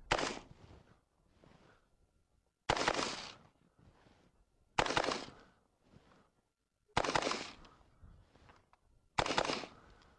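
AR-15 rifle firing five single shots, one about every two seconds, each followed by a short echoing tail.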